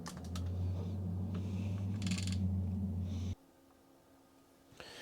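NeXTstation computer running with a steady low hum and a few sharp clicks near the start. The hum cuts off suddenly a little after three seconds.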